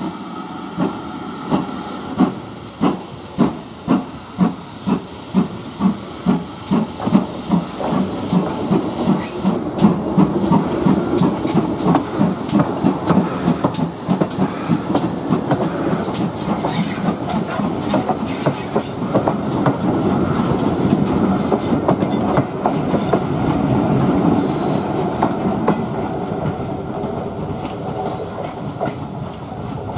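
GWR prairie tank steam locomotive pulling away with a train: sharp exhaust chuffs, slow at first and quickening as it gathers speed, run together into a steady chuffing rumble with steam hiss as it passes close by, then ease off a little as it draws away.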